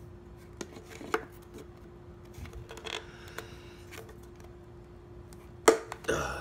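Pliers gripping and snipping at a mixing stick set in hardened filler: a few small clicks and scrapes, then a loud sharp snap near the end as the stick breaks off, with a second crack just after.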